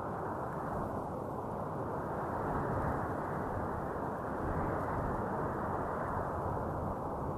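Wind blowing steadily, a low, even rush with no hiss on top, swelling gently a couple of times.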